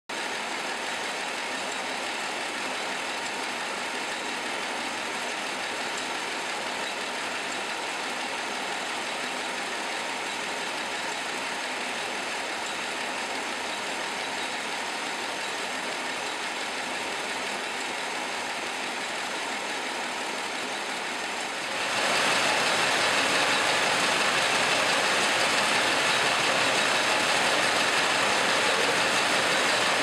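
A continuous-motion form-fill-seal packaging machine for microwave popcorn bags running at speed: a steady, dense mechanical whir with no distinct beat. It grows louder and brighter about twenty seconds in.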